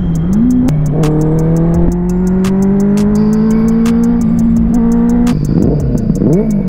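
Benelli 600i inline-four motorcycle engine through an aftermarket exhaust. Its pitch dips and rises, then climbs slowly for several seconds as the bike pulls in gear, and about five seconds in it breaks into quick, sharp revs. Music with a steady beat plays over it.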